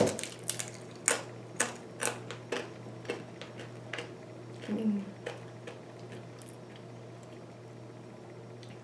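Close-up chewing of crunchy food, a run of sharp crunches about two a second that thin out and stop about five and a half seconds in, over a steady low hum.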